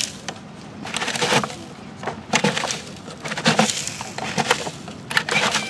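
Tonka steel toy cement mixer's drum being turned, a gritty scraping rattle that comes in bursts about once a second.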